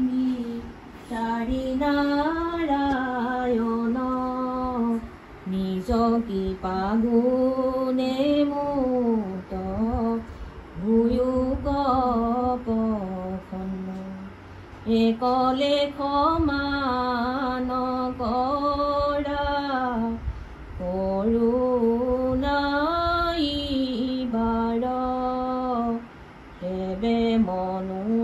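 Women's voices singing a slow devotional chant in long, gliding melodic phrases with short pauses between them.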